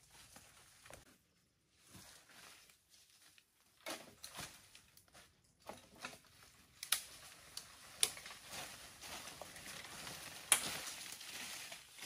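Footsteps crunching over dry leaf litter and brushing through undergrowth, with a few sharp cracks in the later half and a denser rustle near the end.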